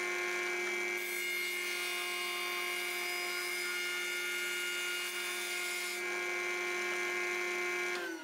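Warrior 0401F spindle moulder running a small-diameter end mill at about 10,000 rpm: a steady high whine. From about a second in to about six seconds in, a rougher cutting noise rides over it as a wooden board is fed past the cutter. Near the end the motor is switched off, and the whine falls in pitch as the spindle spins down.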